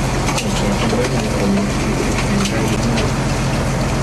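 A fishing boat's engine running with a steady low hum under a constant wash of water and deck-machinery noise, with scattered light clicks.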